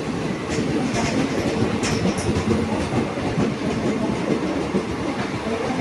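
Railway coaches of a passing express train running on the track, a steady rumble with wheels clattering over the rail joints and a few brief sharp clicks in the first two seconds.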